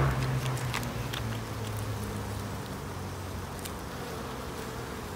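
Honeybees buzzing steadily in a hum from an open hive, with scattered light clicks and knocks as a metal hive tool levers a propolis-stuck frame loose.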